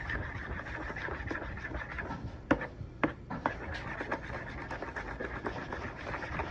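A metal utensil stirring thick ketchup-and-brown-sugar glaze in a bowl: irregular scraping and small clicks against the bowl, with a couple of sharper knocks about two and a half and three seconds in.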